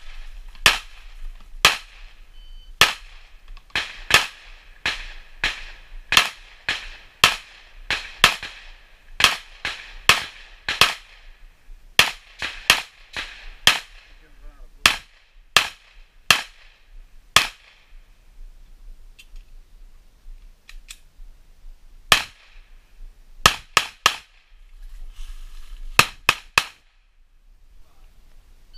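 Gunshots from a competitor shooting a match stage: strings of sharp single shots, roughly one or two a second, broken by short pauses. After about eighteen seconds they thin out to a few fainter shots and then quick pairs and triples.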